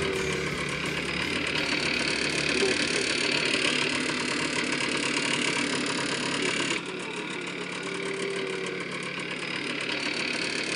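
Small moped engine running steadily, mixed with road and wind noise. About two-thirds of the way through the sound suddenly drops in level and loses its treble, then carries on.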